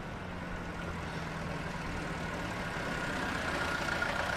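A car engine running and growing gradually louder as the car approaches and pulls up.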